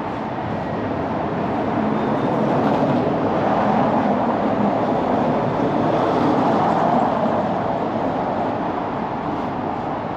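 Street traffic noise from a vehicle passing on a cobbled street. The sound swells over a few seconds and then fades.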